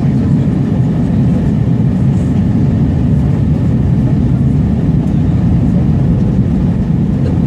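Steady low rumble of an Airbus A320's engines and airflow heard inside the passenger cabin during the descent on approach.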